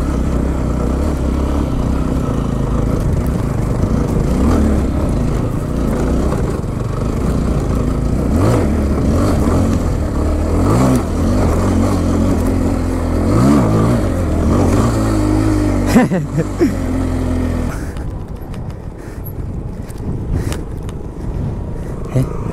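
Motorcycle engine running over a rough trail, rising and falling in pitch several times as the throttle is worked, heard through a helmet-mounted camera. A sharp thump about two-thirds of the way through is the loudest moment, and near the end the engine noise drops off.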